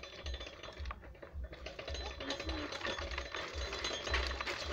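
Bentall No. 2 coffee pulper at work as it is fed, its mechanism clattering and rattling with a dense run of small clicks as coffee cherries go through and pulped beans run out. The clatter thins briefly about a second in, then carries on fuller.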